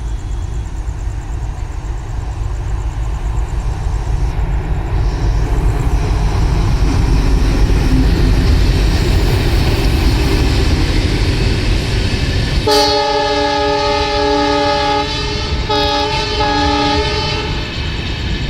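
Train approaching and passing at speed with a steady, growing rumble, then the locomotive horn sounds one long blast about two-thirds of the way through, followed by two short blasts.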